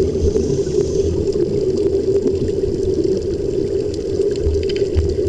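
Steady, muffled underwater bubbling and rushing air from the surface-fed air supply of a helmet diving rig, over a constant low hum.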